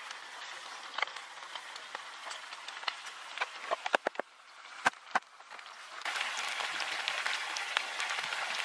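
Chicken thighs deep-frying in a pan of hot oil, giving a dense, steady sizzle that comes in louder about six seconds in. Before it there is a fainter hiss with scattered crackles and a few sharp clicks.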